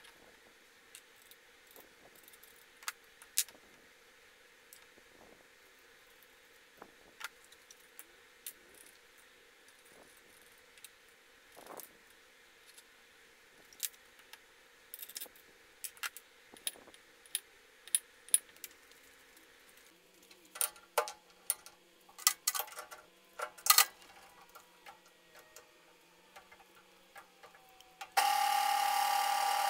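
Scattered metal clicks and clinks of bolts, nuts and steel parts being handled and fitted together on a workbench, with a quick flurry of taps about two-thirds of the way through. Near the end a drill press starts and runs steadily, much louder.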